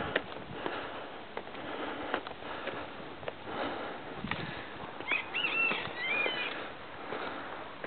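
Footsteps on rocky ground, with a short high animal call of a few gliding notes about five seconds in.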